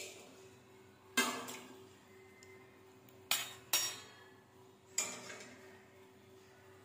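Stainless steel thali plate and bowls clinking against each other: four sharp metallic clinks with short ringing, one about a second in, two close together past the middle, and one about five seconds in.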